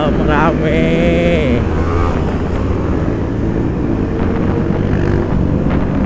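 Motorcycle engine running steadily at a city cruise, the rider's own Honda CBR250RR parallel twin, with other motorcycles of a group ride around it.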